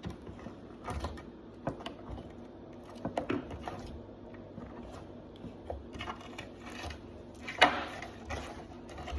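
Slime being handled by hand: scattered small clicks and soft squishes, the loudest a little over three-quarters of the way through.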